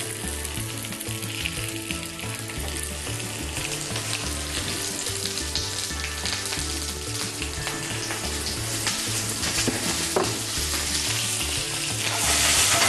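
Meat-stuffed zucchini frying in hot oil in a pan: a steady sizzle with fine crackles, louder near the end.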